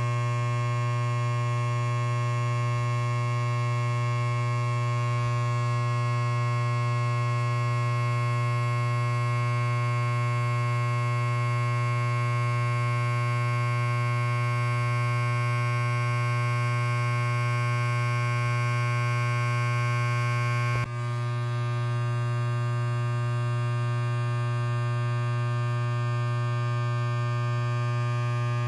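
Electric hair clipper running steadily with a constant low-pitched buzz, and a short click about 21 seconds in.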